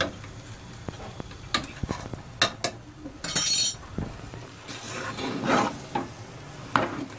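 A long metal ladle stirring thick, sticky chana dal halwa in a large aluminium pot as it is fried down with sugar and khoya. Scattered knocks and scrapes of the ladle against the pot, with a short high hiss a little past three seconds in.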